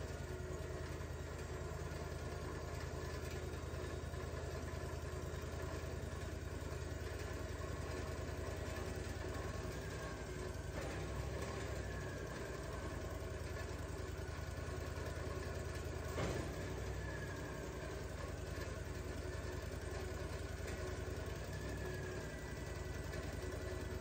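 An engine idling steadily, with one sharp knock about sixteen seconds in.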